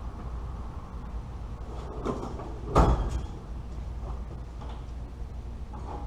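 Knocks and clunks of tools or parts being handled during work under a vehicle's hood: a lighter knock about two seconds in, then one loud, sharp clunk a moment later, over a steady low hum.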